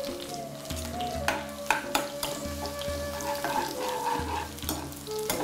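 Hot coconut oil sizzling around green chillies and ginger strips frying in a non-stick pan, with several sharp clicks of a spatula against the pan.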